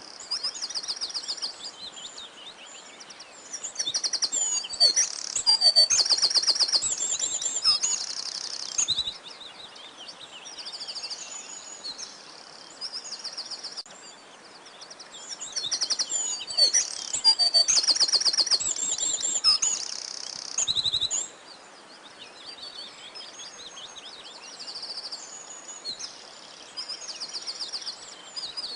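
Several songbirds singing and chirping at once, with fast trills and rapid repeated high notes. The chorus swells louder twice for several seconds and stays quieter in between.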